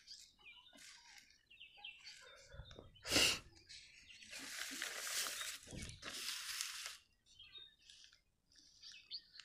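A page of a paper exam booklet being handled and turned: a sharp knock about three seconds in, then about three seconds of paper rustling and crinkling.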